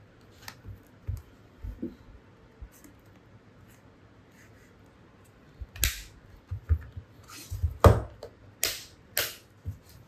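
Hard plastic clicks and snaps of a waterproof handlebar phone holder case being shut and latched around a phone. The first half has faint handling clicks, then several loud, sharp snaps come over the last four seconds.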